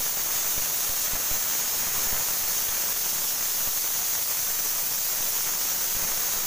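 Stainless-steel pressure cooker on a gas flame venting steam, a loud, steady hiss.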